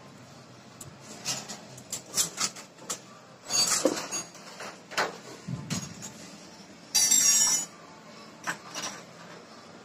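Scattered clicks and clinks of small metal parts as a dismantled motorcycle starter motor's housing and brush holder are handled, with a short burst of hiss-like noise about seven seconds in.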